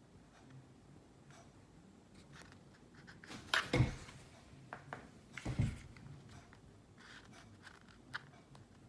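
Hands handling a Funko Pop vinyl figure, with light rustles and small clicks and two louder knocks about three and a half and five and a half seconds in.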